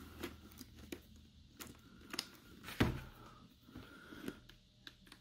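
Faint scattered clicks and rustles of hands handling a helmet while working a wire through it, with one louder knock a little under three seconds in.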